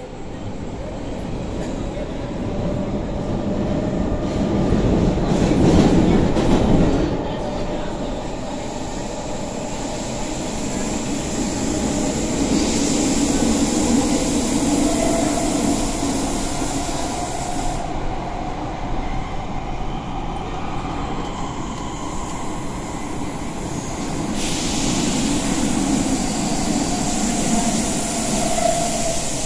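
Athens Metro Line 2 train running through the tunnel, heard from inside the carriage: a steady rumble of wheels on rail that builds over the first few seconds to a loud rattling peak about six seconds in, then carries on steadily with a faint wheel squeal and stretches of high hiss.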